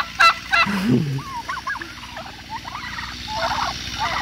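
Domestic turkeys gobbling: a loud, rapid gobble at the start, then repeated quieter gobbling bouts.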